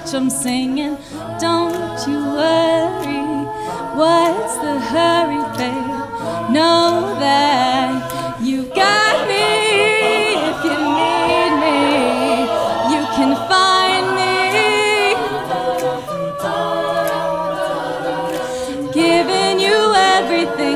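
Collegiate a cappella group singing layered vocal parts with no instruments, several voices at once. The parts grow fuller about nine seconds in and thin out again later.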